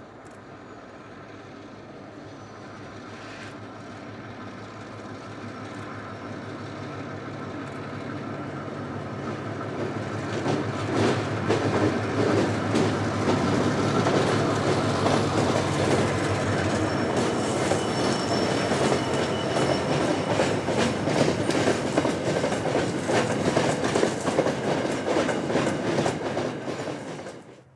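Two diesel locomotives of an iron ore train approach and pass, their engine note growing steadily louder. About ten seconds in they give way to the steady clickety-clack of the ore hopper wagons' wheels over the rail joints. The sound cuts off suddenly near the end.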